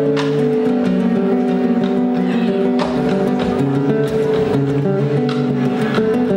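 Live band music: a classical-style acoustic guitar strumming chords with a drum kit behind it.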